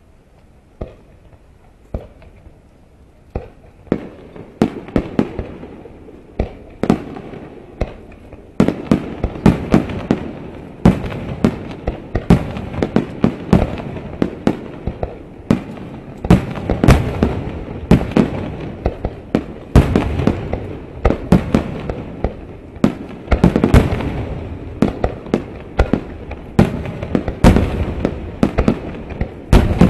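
Aerial firework shells bursting: a few single bangs at first, then from about four seconds in a dense, near-continuous barrage of overlapping bangs with rumble between them.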